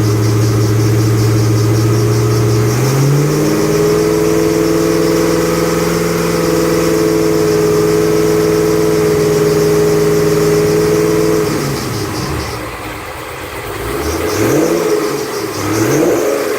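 2008 Ford Mustang Bullitt's 4.6-litre V8 running. Engine speed steps up about three seconds in and holds steady, then drops, and the throttle is blipped up and down about three times near the end.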